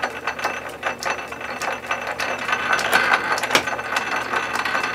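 Metal lathe running slowly in back gear with the lead screw engaged in reverse, winding music wire onto a mandrel to form a spring. Its gear train makes a steady mechanical clatter with frequent sharp clicks.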